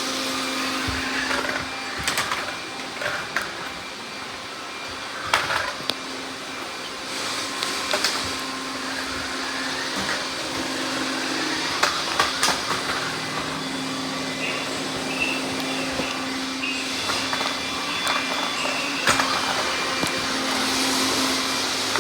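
Robot vacuum cleaners running, with a steady motor hum and brush whirr broken by occasional sharp knocks and clicks.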